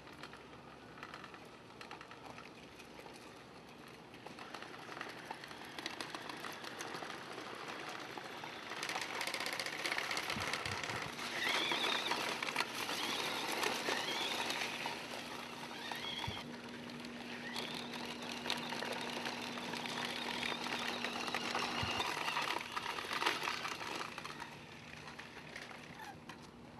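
Small tracked bomb-disposal robot driving over gravel, its rubber tracks crunching the stones. A steady electric motor hum runs under the crunching through the middle stretch. The crunching is loudest in the middle and fades toward the end as the robot reaches smooth concrete.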